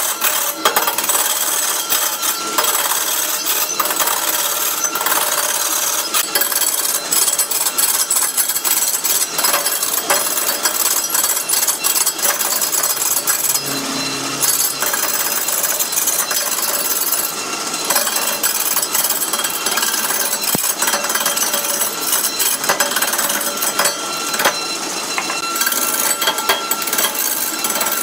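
Wood lathe spinning a large wooden blank while a hand-held turning tool cuts into it: a loud, steady rattling chatter of tool on wood, made of dense rapid clicks.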